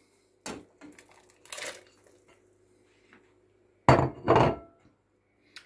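Chopped potatoes slide off a ceramic plate into a pot of broth with a soft rush and a small knock. About four seconds in, the empty plate is put down on the worktop with two quick, loud clinks and a short ring.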